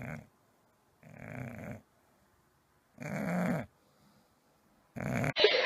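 English bulldog snoring in its sleep: four drawn-out snores, each under a second, about every one and a half to two seconds. A louder, different sound cuts in abruptly near the end.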